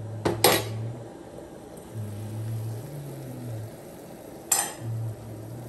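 Metal cookware clanking against an iron kadai, with two sharp knocks about half a second in and another near the end, over oil sizzling as it fries. A low hum comes and goes and steps in pitch.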